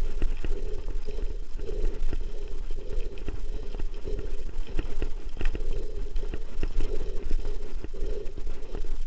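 Mountain bike riding uphill on a loose gravel road: the tyres crunch over stones and the bike rattles, with a steady stream of small clicks and knocks over a low rumble.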